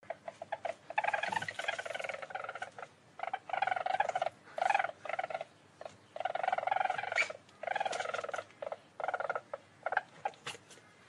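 Weasel trilling: repeated bouts of rapid, pulsing trills, some brief and some nearly two seconds long, with short pauses between.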